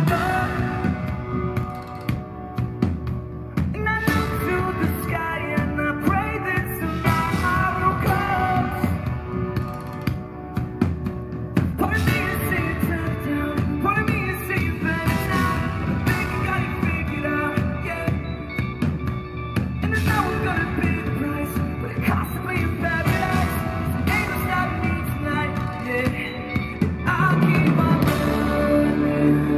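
Rock band playing live: drum kit, electric bass guitar and keyboards, with a man singing lead into a microphone. The band gets louder near the end.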